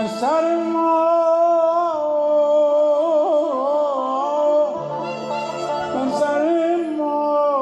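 Male voice singing Persian vocal music (avaz), with long held notes and a quick ornamented warble about three seconds in, over string-instrument accompaniment.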